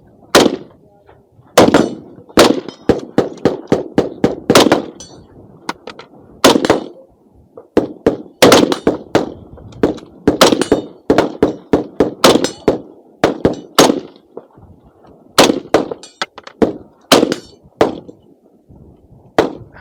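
Gunfire on a shooting range: dozens of shots, some single and some in quick strings of three to six, separated by pauses of about a second.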